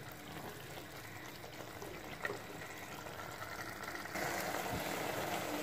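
Minced meat and peas frying in oil in a clay handi: a soft steady sizzle, with one light tap about two seconds in, getting louder about four seconds in.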